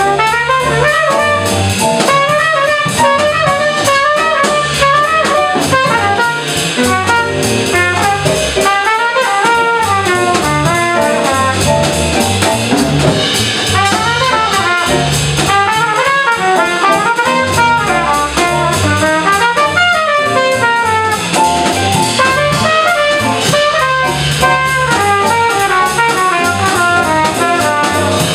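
A small jazz group playing in a swing feel: a trumpet plays quick, running melodic lines over upright bass and a drum kit, with no pause.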